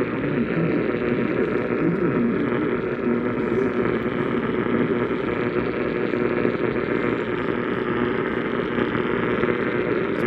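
Steady hiss of static from a radio receiver on a weak, noisy signal, dull and muffled with no highs.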